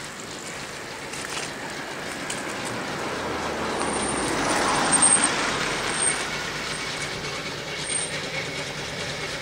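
A Burrell showman's steam road engine running along the road towards the listener. Its noise grows louder to a peak about halfway through and then eases off.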